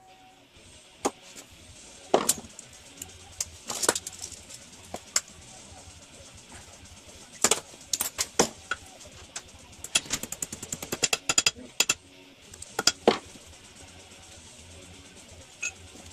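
Harbor Freight 90 amp flux-core welder arc sputtering and popping in short, irregular bursts, with a dense run of crackling about ten seconds in, over a low hum. The arc keeps breaking off on the thick steel of a railroad spike, which this small welder can't handle.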